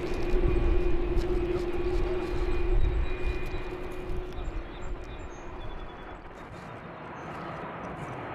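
Jet airliner passing overhead: a loud low engine rumble with a steady droning tone for the first three seconds or so, then fading away.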